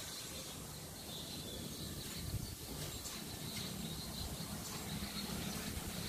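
Outdoor ambience: wind rumbling unevenly on the microphone, with a faint high steady insect hum.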